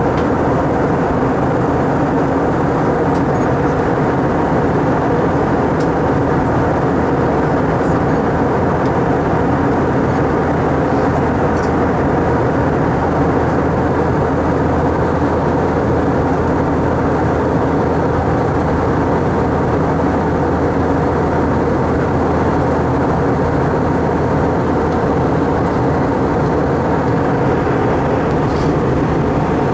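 Steady in-flight cabin noise of an Airbus A320 airliner, heard from a window seat: an even rush of airflow and jet engine noise with a few constant hum tones under it.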